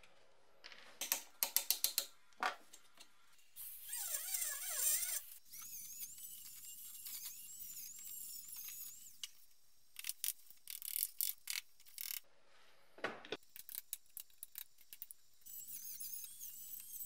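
Handheld rotary tool running in two spells at the bracket's metal clip mounts, giving a high whine that wavers as it bites. Between the spells come clusters of sharp metallic clicks and taps, and one louder knock.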